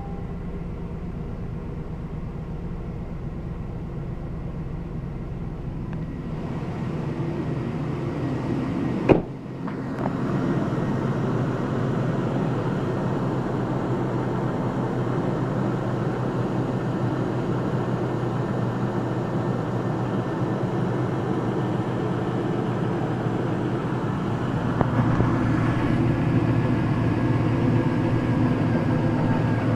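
A Jasper remanufactured 5.3-litre V8 engine running steadily with a noise the owner cannot identify. There is a single sharp click about nine seconds in, and the running gets a little louder near the end.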